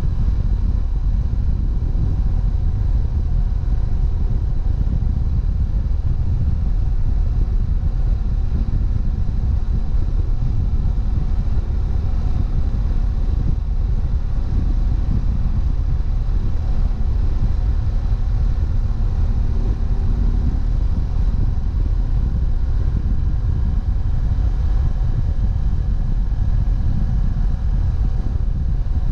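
BMW F700GS's parallel-twin engine running steadily while riding at speed, heavily mixed with low wind rumble on the camera's microphone.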